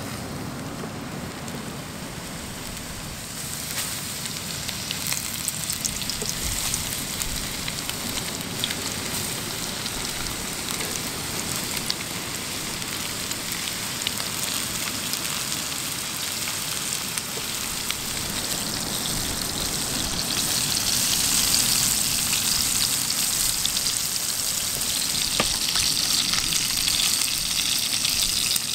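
Hot oil sizzling and crackling as breaded fish fillets fry in a cast-iron pan. The sizzle grows louder about three seconds in and again about twenty seconds in.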